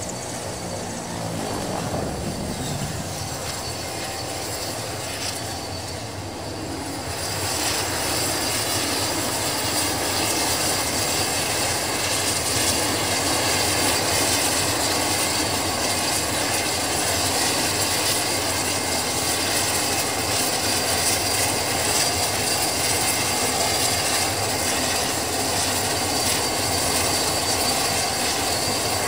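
De Havilland Canada Dash 7 four-engine turboprop running: a steady drone of engines and propellers with a thin high whine. It grows louder about seven seconds in and then holds steady.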